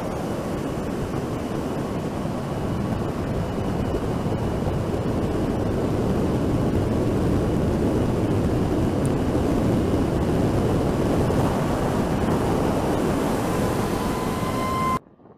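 Steady rush of wind and tyre noise from driving at speed, with wind on the microphone. It swells a little through the middle and cuts off suddenly shortly before the end. A faint high whine sounds at the start and again just before the cut.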